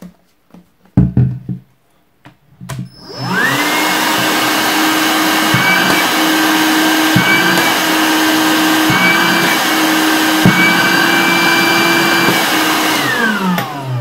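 Altus AL 767 7.2 V cordless handheld vacuum cleaner, switched on after a few handling knocks. Its motor spins up with a rising whine to a steady high whine over a rush of air, dipping briefly in pitch a few times. Near the end it is switched off and winds down with a falling whine.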